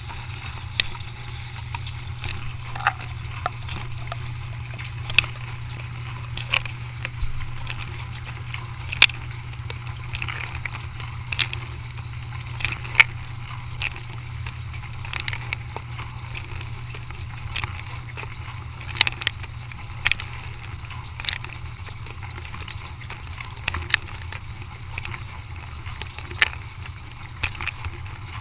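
Dishwasher running: a steady low motor hum with water noise and irregular sharp clicks.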